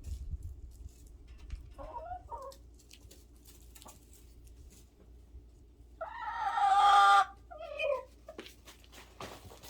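Animal calls: a short call about two seconds in, then a loud drawn-out call lasting about a second starting around six seconds in, and a shorter one just after it.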